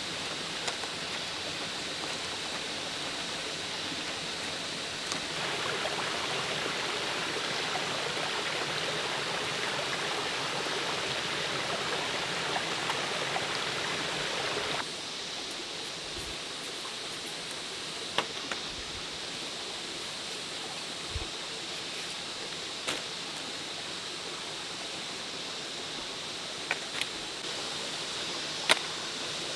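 Steady rush of running water, like a stream, with a few sharp clicks and knocks in the second half.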